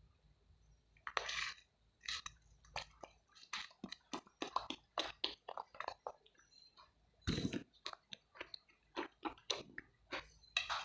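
Close-up crunchy biting and chewing of something hard and brittle: a run of sharp, irregular crunches, several a second, with louder bites about a second in and about seven seconds in.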